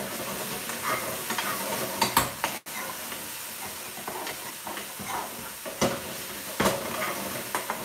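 Thick curry sauce sizzling in a shallow aluminium pan on a gas hob as a long metal spoon stirs and scrapes it, clicking against the pan a few times. The sauce is reduced down and caramelising onto the pan.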